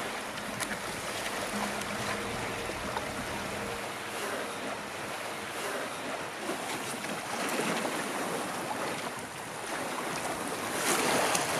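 Wind gusting and waves washing on a lake as a thunderstorm moves in, swelling louder near the end.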